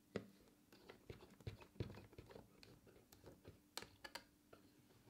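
Quiet, irregular clicks and knocks as a 3D-printed plastic bench vise is cranked by its handle to clamp a wooden strip.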